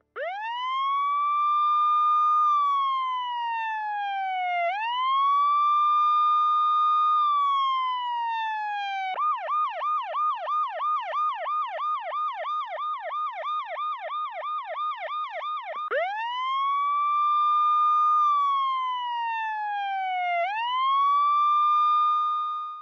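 Electronic emergency-vehicle siren: a slow wail rising, holding and falling, switching partway through to a fast yelp of about three sweeps a second for some seven seconds, then back to the wail.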